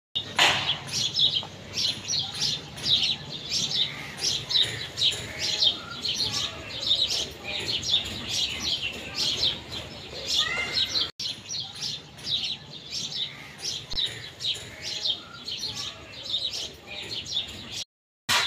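Birds chirping: a dense, steady stream of short, high chirps from several birds at once, broken by an abrupt cut about eleven seconds in and a brief silence near the end.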